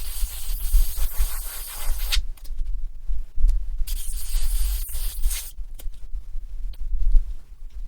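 Airbrush spraying paint in two hissing runs of about two seconds each, with short pauses between, over a steady low hum.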